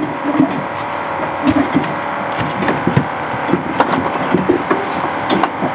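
Irregular knocks and clatter on a small fishing boat, a dozen or so scattered hits, over a steady background hiss.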